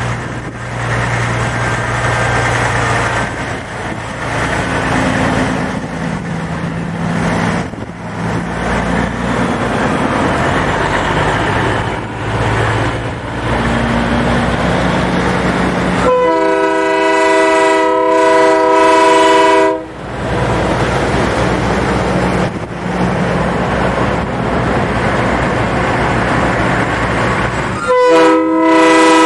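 Big-rig trucks running past at parade pace, their diesel engines a steady low drone. About halfway through, a multi-chime air horn sounds one long blast of about four seconds, and a shorter blast comes right at the end.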